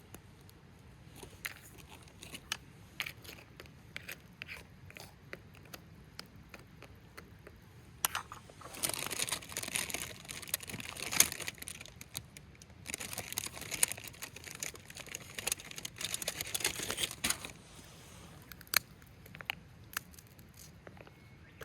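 Plastic packaging crinkling as it is opened and handled, in dense bursts through the middle of the clip, with scattered small clicks and knocks before and after.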